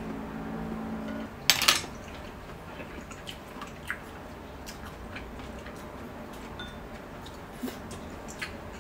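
Metal chopsticks clattering against a stainless steel cooking pot, sharpest about a second and a half in, followed by scattered small clicks of utensils and dishes while eating.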